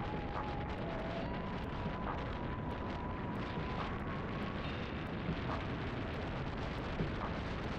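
Strong wind rushing over the microphone while cycling, a steady dense noise, with a faint thin whine underneath that shifts pitch a few times.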